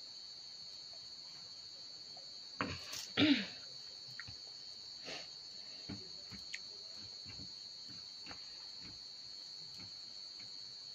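Crickets chirring in a steady, even high-pitched trill. About three seconds in comes a louder clatter as a steel tumbler is set down, then faint clicks of a hand mixing rice on a steel plate and of eating.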